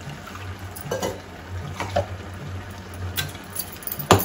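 A little water being added to a pan of simmering curry, with a spoon clinking against the pan several times and a sharp metal knock near the end, over a low steady hum.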